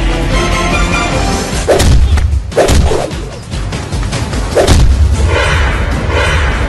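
Movie fight sound effects: whooshing swings and sharp, whip-like punch and kick hits, in a few clusters, over action background music.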